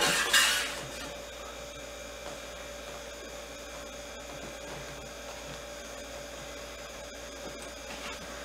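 Steady low room hum with a few fixed electrical tones, and a brief rustle near the start as the doll's costume is handled.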